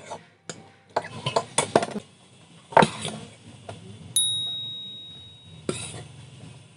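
Eating sounds: forks and spoons clinking against bowls, with noodles being slurped. About four seconds in, a sharp clink rings on as a clear high tone that fades over about a second and a half.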